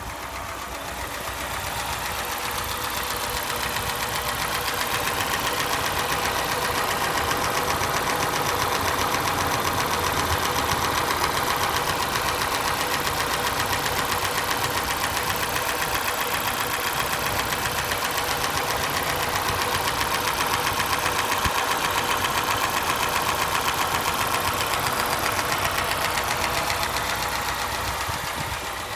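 Niva car engine running with a rapid, regular knock in the engine. The sound grows louder over the first few seconds, then holds steady.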